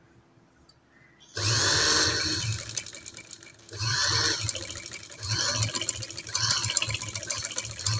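Manual sewing machine stitching through a strip of cloth folded into eight layers, a test of whether it can sew thick layers cleanly. It starts about a second and a half in and runs in about five short bursts of needle clatter with brief pauses between.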